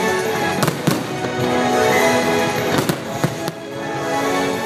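Fireworks going off in a series of sharp bangs, about four of them in the first two-thirds, over loud show music with long held notes.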